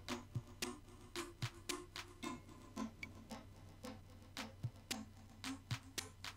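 Background music with a steady, clock-like ticking beat, about two clicks a second, with short low plucked notes and an occasional soft low thump.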